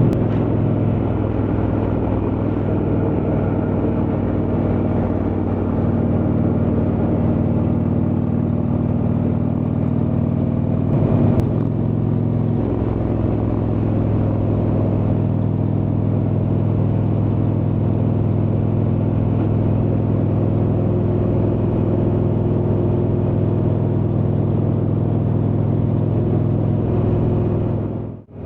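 Indian Chieftain's Thunder Stroke V-twin running steadily at cruising speed through a Freedom Performance exhaust. The engine note shifts briefly about eleven seconds in, and the sound drops out for a moment near the end.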